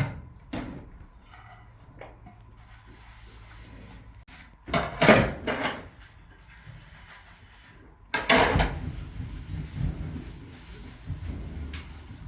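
Clatter and knocks of dishes and wooden household things being handled in a small room. There is a burst of knocking about five seconds in, and a longer run of clattering from about eight seconds in.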